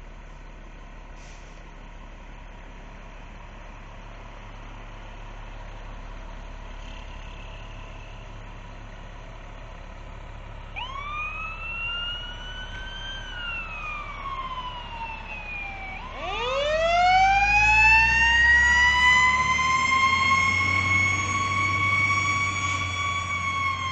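Emergency vehicle sirens on responding fire-rescue apparatus over a heavy truck engine's low rumble. About eleven seconds in, a siren winds up and then slowly falls. About sixteen seconds in, a second, louder wind-up climbs from low and holds at a high steady pitch while the engine rumble grows.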